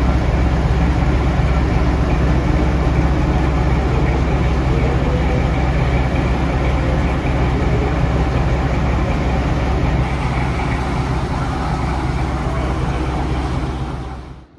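Diesel locomotive engine running loudly and steadily, easing slightly after about ten seconds, then cut off abruptly just before the end.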